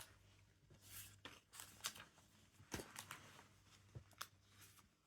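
Faint, scattered rustles and soft clicks of paper being handled: pages of a Lego instruction booklet being turned.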